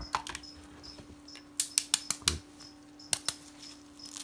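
Pheasant eggshell being tapped and cracked open against the edge of a steel ruler: a run of sharp clicks and cracks, most of them bunched together about one and a half to two and a half seconds in, and again around three seconds.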